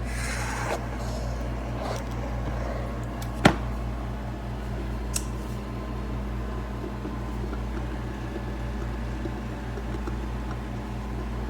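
Mr. Coffee 5-cup drip coffee maker brewing: a steady low hum with a brief hiss at the start, a sharp click about three and a half seconds in, and a few small ticks.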